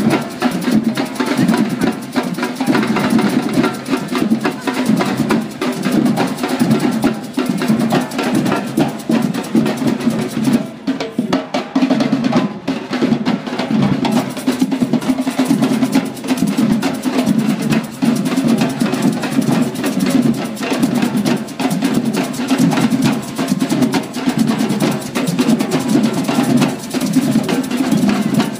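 Percussion music: fast, dense drumming with rapid strikes packed closely together.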